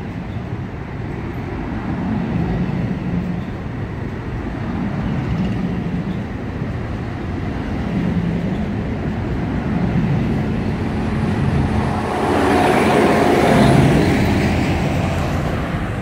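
NJ Transit MultiLevel bilevel commuter coaches rolling past a station platform: a steady rumble of steel wheels on the rails. It grows louder and brighter for a few seconds near the end.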